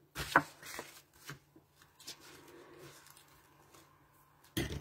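Cardstock cards handled on a craft table: sharp taps and paper rustles as a card is lifted and moved about, with a louder cluster of taps near the end.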